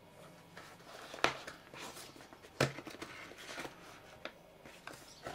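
Cardboard product box handled and opened by hand: faint scraping and rustling of card, with two sharp taps about a second and a half apart.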